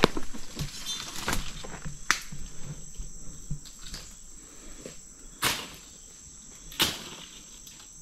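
Insects chirring in a steady, high, even buzz. Scattered snaps and rustles of footsteps in dry brush are heard over it, busiest in the first two seconds, with two louder swishes about five and a half and seven seconds in.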